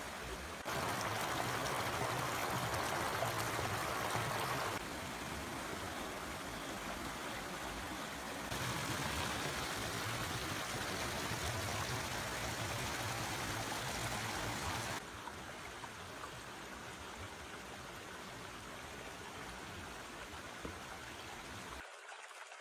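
A forest stream flowing: a steady rush of running water. Its loudness jumps up or down abruptly several times.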